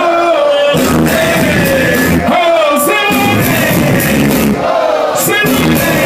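Live hip-hop music played loud through a large stage PA, with vocals over a heavy beat. The bass and drums drop out briefly three times, leaving the voices on their own.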